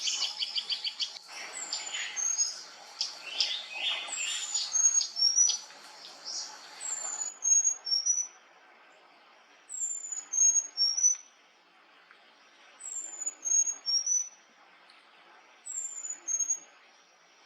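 A songbird singing a short phrase of three clear, high notes, each lower than the last, repeated about every three seconds. For roughly the first half, other bird calls chatter underneath it.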